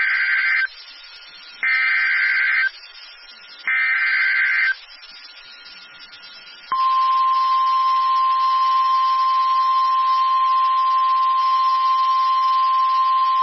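Emergency Alert System weather alert: three short bursts of SAME digital header data, each about a second long, then after a pause a steady single-pitch 1050 Hz weather-radio warning alarm tone that starts about seven seconds in. The tone is the signal that a severe thunderstorm warning message follows.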